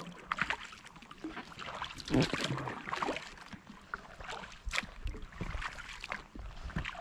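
Kayak paddle strokes on calm water: the blades dip and pull through the water with irregular splashes and drips running off the paddle, and a louder splash about two seconds in.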